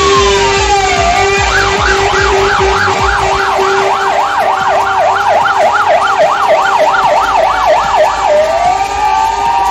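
Fire engine sirens sounding: a slow falling wail switches after about a second and a half to a fast yelp of about three cycles a second, then goes back to a slow rising wail near the end. A steady lower tone runs beneath.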